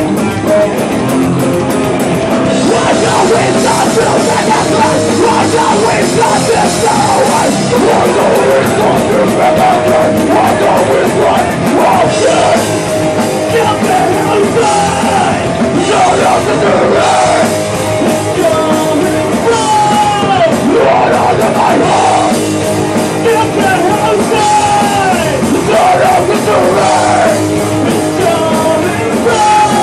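Hardcore punk band playing live, loud: electric guitars and a drum kit with sliding guitar notes in the second half.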